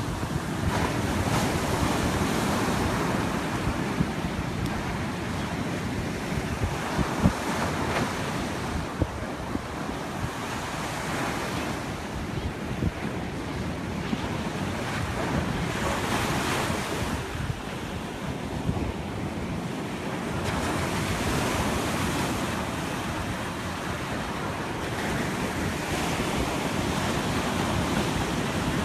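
Ocean surf breaking and washing up the beach, the roar swelling and easing every few seconds as each wave comes in, with wind buffeting the microphone.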